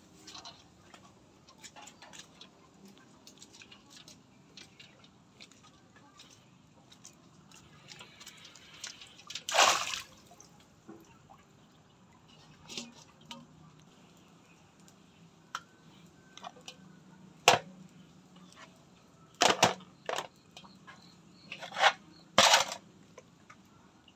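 Water sloshing and splashing as small eels are handled in a metal basin and released into a muddy pond. It comes in a handful of short splashes: the loudest about ten seconds in, a sharp knock a little past halfway, and two more near the end.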